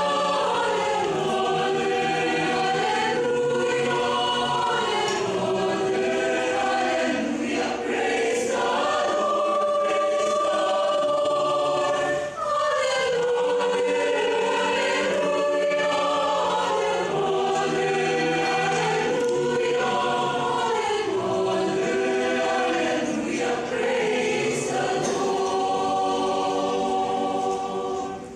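A mixed choir of men and women singing together in a church, with a brief pause for breath about midway and the phrase ending right at the close.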